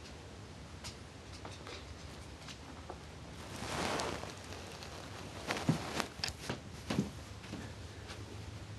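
A pug squeezing out through a bathroom door and walking off: a soft brushing rustle about four seconds in, then a quick run of sharp clicks and taps, with a low steady hum underneath.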